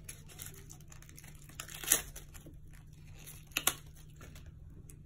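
A SIM card being pressed out of its plastic carrier card: faint crinkling and handling noise with a few sharp snaps, the loudest about two seconds in and a quick pair about three and a half seconds in.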